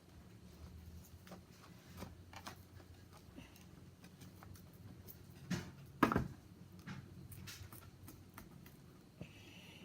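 Light clicks and rustling from handling cut cardstock pieces, with two louder knocks about five and a half and six seconds in, the second the loudest. A steady low hum runs underneath.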